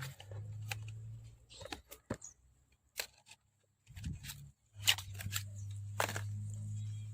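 Cordless orbital sander motor running with a low steady hum that stops about a second in and starts again around four seconds in. Sharp clicks and knocks fall between and over the runs.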